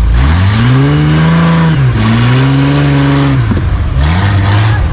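Off-road 4x4's engine revving in three surges, climbing in pitch, holding, then dropping back each time.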